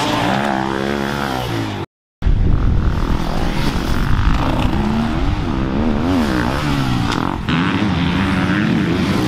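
Several dirt bike engines racing on a motocross track, each revving up and down repeatedly as the bikes accelerate and back off. The sound cuts out completely for a moment about two seconds in.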